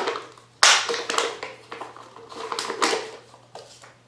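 Thin plastic liner of a 3M PPS 2.0 spray-gun cup crinkling and rustling as it is handled and pushed down into its hard plastic cup. There is a sharp plastic click at the start and another about two thirds of a second in, and the rustling dies away near the end.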